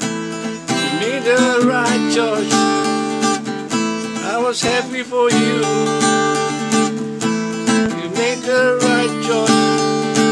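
Acoustic guitar strummed in steady chords, with a man singing over it in short gliding phrases.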